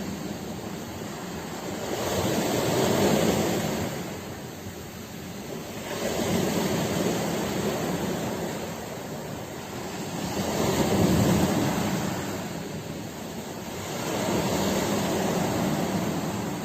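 Sea waves breaking and washing on the shore, surging and receding in four swells about four seconds apart.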